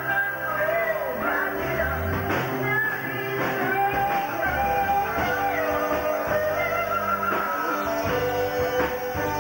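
Live band playing upbeat dance music: guitar and bass over a steady drum beat, with a melody line that bends in pitch on top.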